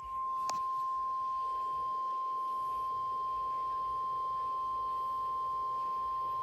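NOAA Weather Radio warning alarm tone: one steady, unbroken beep-like tone near 1050 Hz. It signals that a warning is about to be broadcast, here a severe thunderstorm warning. A brief click sounds about half a second in.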